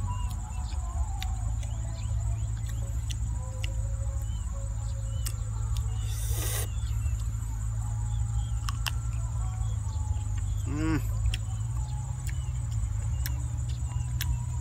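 Eating sounds of boiled chicken being bitten and chewed: wet mouth clicks and lip smacks. Behind them run a steady high-pitched whine and a low rumble, with small chirps, a brief hiss about halfway through, and a short rising call about eleven seconds in.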